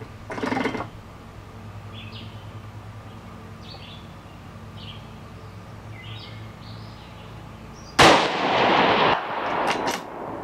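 A single .223 rifle shot about eight seconds in, loud and sudden with an echo tail of about a second, followed near the end by a few faint sharp ticks.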